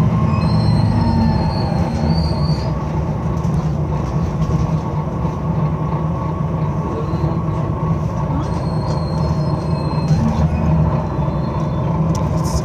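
Interior of a Volvo B9TL double-decker bus under way: its Volvo D9B diesel and ZF Ecolife automatic gearbox make a steady low drone, mixed with road and body noise. The engine note eases a couple of seconds in and picks up again about ten seconds in, and a thin high whine comes and goes.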